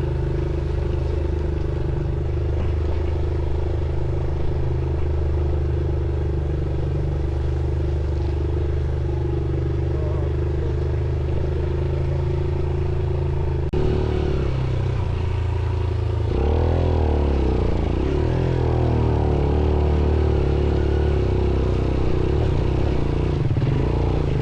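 Motorcycle engine running steadily, then a sharp knock about fourteen seconds in, after which the engine revs up and down under load on a steep, muddy climb. The sound drops away at the very end.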